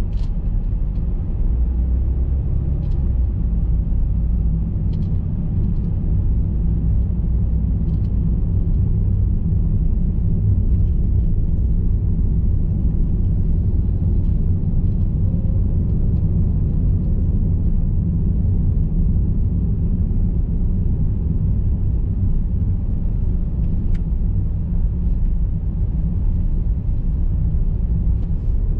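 Car driving, a steady low rumble of road and engine noise.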